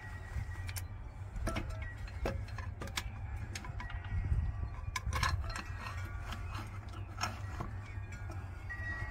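Scattered clicks and knocks as a small finned solar inverter is handled and fitted against a perforated metal mounting rail. Wind chimes ring lightly now and then, over a steady low wind rumble on the microphone.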